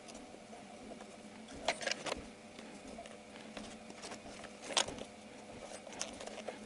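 Hard plastic air-filter housing being handled while a rubber intake seal is worked into its opening: light knocks and clicks, a few taps about two seconds in and a sharper one near five seconds.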